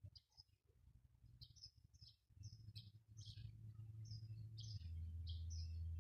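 Small birds chirping in short, high calls, a couple every second, over a steady low hum that swells in after about two seconds and steps slightly lower in pitch near five seconds.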